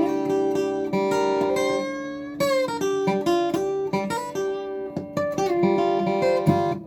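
Boucher SG-152-BMV acoustic guitar strung with broken-in, medium-gauge Martin Monel strings, played with a pick: picked single notes and strums, with a note sliding up in pitch about two and a half seconds in.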